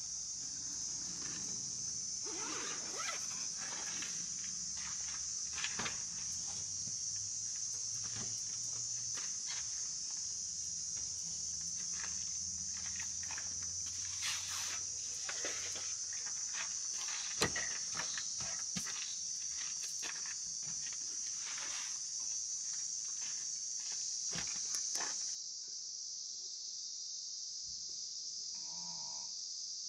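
Steady high-pitched drone of insects, with scattered knocks, rustles and footsteps on gravel as camping gear bags are handled and packed. The handling sounds stop about 25 seconds in, leaving only the insect drone.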